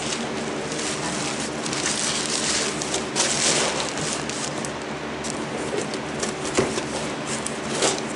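Paper packing being handled, rustling and crinkling in irregular bursts, busiest about three seconds in, over a steady low hum.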